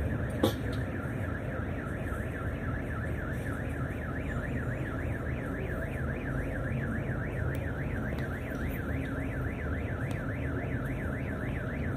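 An electronic alarm tone warbling steadily up and down, about three to four sweeps a second, over the low rumble of the coach's running engine, with a sharp click about half a second in.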